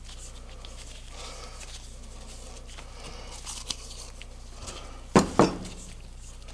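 Light clicking and handling noise, then two sharp knocks in quick succession about five seconds in, over a steady low hum.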